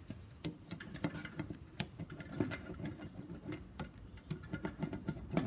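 Small wooden-handled hand roller pressing a foil-faced rubber sound-deadener sheet down onto a cymbal: a quiet run of irregular light clicks and ticks.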